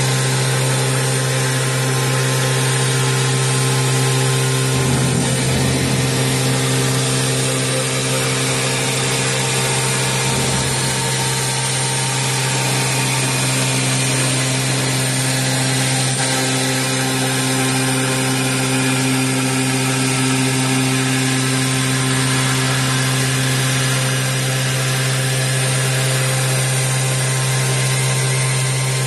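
CNC machine's water-cooled spindle running steadily as its cutter grinds a groove into a slab under coolant spray: a constant hum with several steady tones, with a brief rougher patch about five seconds in and again near ten seconds.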